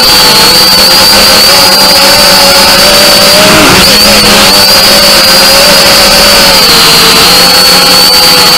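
Multirotor drone's motors and propellers whining, heard from its onboard camera: a steady high whine over a lower hum. A little over three and a half seconds in the pitch dips sharply and comes back up.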